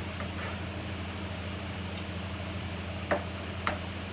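Steady low kitchen hum with a few faint light taps early on, then two sharp knocks on the worktop about three seconds in, half a second apart, as kitchen things are set down after chopping garnish.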